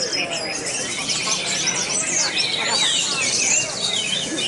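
An orange-headed thrush singing a rapid, varied run of whistles and chirps with quick rising and falling notes, overlapped by other caged songbirds singing at the same time.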